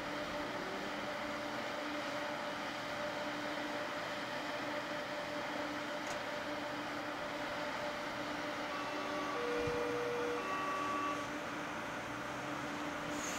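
RET metro train standing at the platform, its equipment humming steadily with a mechanical-fan rush. About nine seconds in, a few short beeping tones sound for roughly two seconds.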